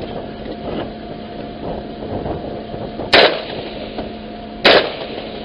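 Two rifle shots about a second and a half apart, each sharp and loud with a short ringing tail, over a steady hum.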